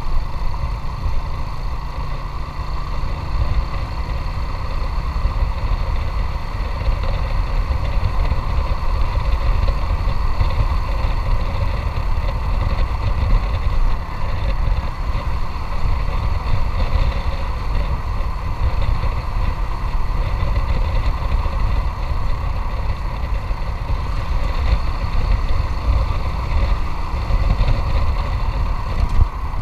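Motorcycle engine running steadily while riding, with a heavy, flickering wind rumble on the microphone.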